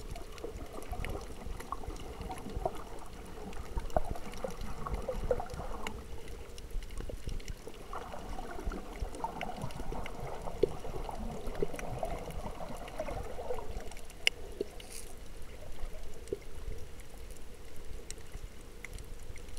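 Muffled underwater water noise picked up by a camera held below the surface: uneven swishing and gurgling over a low rumble, with scattered sharp clicks.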